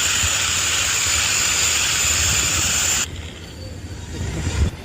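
Steady, loud hissing noise with a high whine in it that cuts off suddenly about three seconds in, leaving a quieter low rumble.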